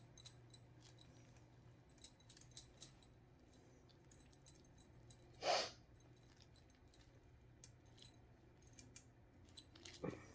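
Faint scattered clicks and light taps of small tools and cups being handled while working with epoxy resin, over a low steady hum. A brief louder swish comes about halfway through.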